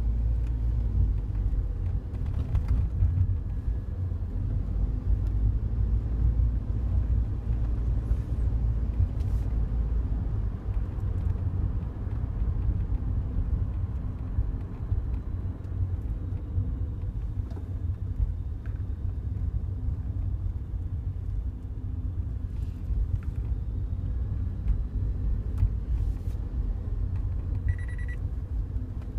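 Cabin of a Daihatsu Wake on the move: steady low road and engine rumble, with scattered sharp clicks and ticks of a rattle from the passenger-side dashboard that the vibration sets off. A brief high-pitched chirp comes near the end.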